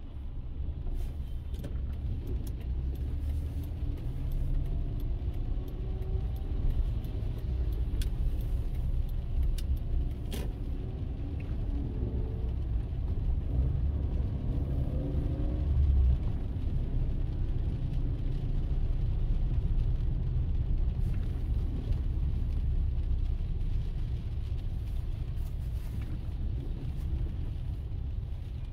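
Car driving, heard from inside the cabin: a steady low rumble of road and engine noise that swells briefly about two-thirds of the way in, with scattered faint clicks.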